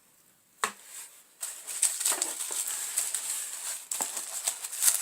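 Rustling and crinkling of gift packaging being handled, with many small clicks, starting after a single sharp click about half a second in.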